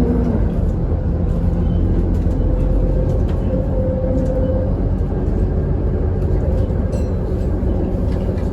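Alexander Dennis Enviro400 double-decker bus heard from inside while on the move: steady diesel engine and road rumble with a faint whine that drifts up and down in pitch.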